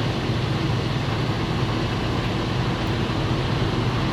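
2015 Freightliner Cascadia's diesel engine idling steadily with a low, even hum.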